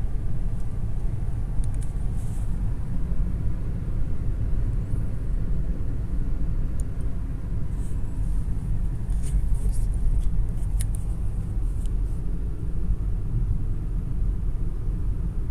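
Steady low rumble of road and engine noise inside a moving car's cabin, with a few faint high ticks.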